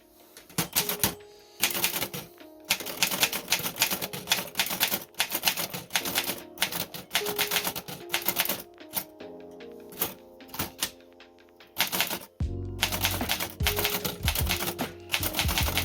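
Typing on a 1925 Remington Portable No. 2 typewriter: quick, irregular runs of keystrokes with short pauses, over background music. A deeper bass comes into the music about twelve seconds in.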